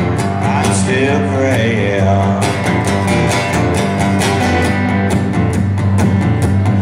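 Guitar strummed in a steady rhythm with sustained low notes, an instrumental break in a live rock song.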